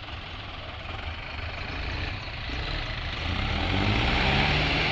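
Tractor diesel engines running under load while pulling a loaded sugarcane trolley, rough and low at first, then revving up about three seconds in and holding at a higher, louder steady pitch.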